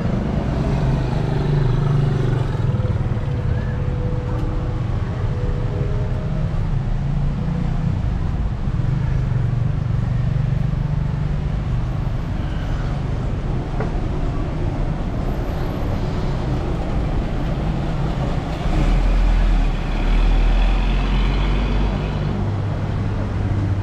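Street traffic: vehicle engines running steadily. A bus passes close by about nineteen seconds in, and its engine brings a louder, deep low sound for a few seconds.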